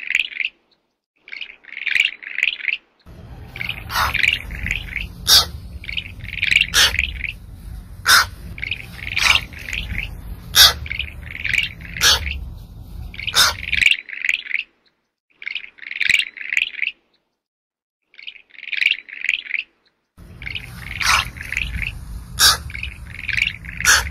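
Quick high chirping calls in short rapid clusters, repeated every second or two, with sharp clicks in between. A low rumble comes in about three seconds in, drops out around fourteen seconds and returns near the end.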